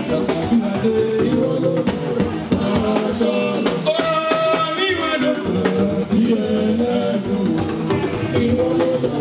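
Live jùjú band music: singing over drums and pitched instruments.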